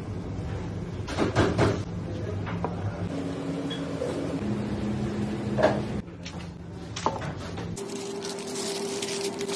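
Kitchen handling noises from food preparation: a few knocks and rustles, the loudest about a second and a half in and just before six seconds, over a faint low steady hum.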